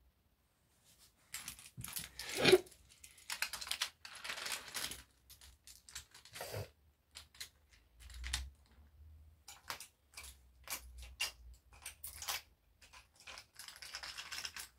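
Wooden toy trains clicking and clacking as they are pushed along wooden track and knocked together: an irregular run of small clicks and knocks, a louder clack about two and a half seconds in.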